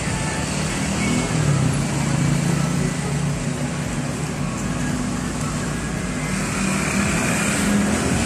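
Steady street traffic noise, with vehicle engines running as a continuous low hum.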